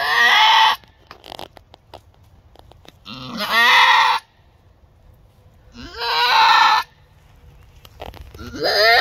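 Boer–pygmy mix doe in labour with her first kid, bleating loudly as she delivers: four long calls about three seconds apart, each sliding up in pitch at the start, the last one beginning near the end.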